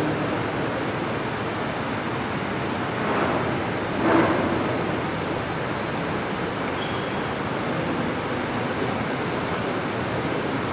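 Steady rushing fan noise, with one brief louder sound about four seconds in.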